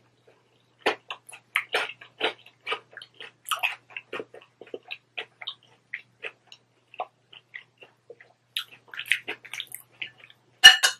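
Close-up chewing of a mouthful of taco salad: a long run of irregular mouth clicks and crunches. Near the end a metal fork strikes the glass bowl once, the loudest sound.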